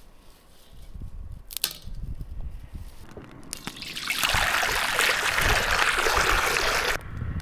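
Liquid being poured for about three seconds, building up and then cutting off sharply. A sharp click comes a second or two before it.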